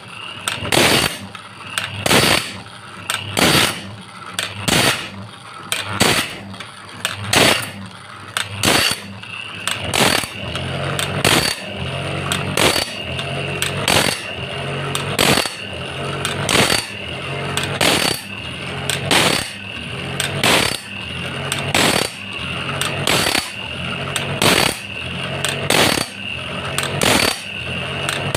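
Homemade automatic band-saw-blade sharpener at work. Its electric grinding wheel whines steadily as it grinds each tooth, and the feed arm clicks regularly as it steps the blade on tooth by tooth. The whine gets louder about a third of the way in.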